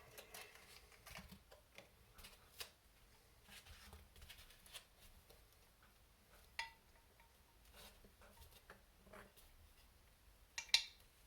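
Small metal parts and hand tools clicking and clinking as model excavator parts are handled and fitted. Light scattered taps, with a sharper clink that rings briefly about six and a half seconds in and the loudest clicks near the end.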